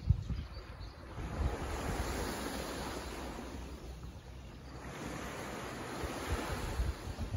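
Small waves washing up on a sandy beach, the surf swelling twice and falling back, with low wind buffeting on the microphone.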